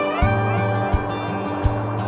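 Background music with a steady beat and a guitar line that slides up in pitch near the start.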